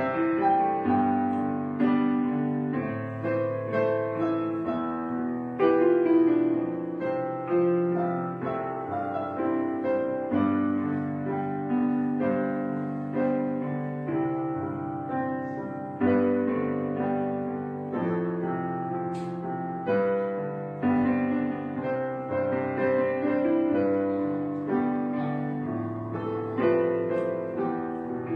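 Background solo piano music, notes struck one after another and left to ring and fade.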